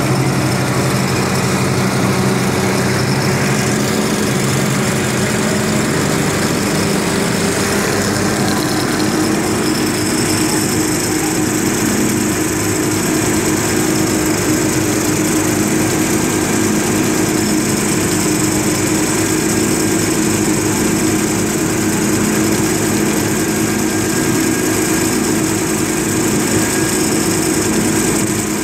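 Amphibious vehicle's engine running steadily while it cruises afloat, its note shifting a little higher about eight seconds in and then holding.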